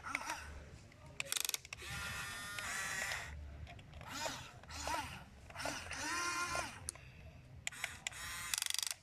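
Toy remote-control excavator's small electric motors whining as the arm and bucket move, the pitch rising and falling several times, with short bursts of rapid gear clicking about a second and a half in and again near the end.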